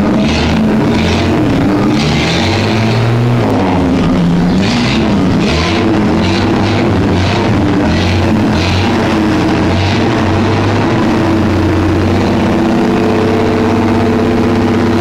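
Chevrolet Opala straight-six engine running loud, its revs dipping and rising a few times, with rock music and a steady drum beat playing along with it.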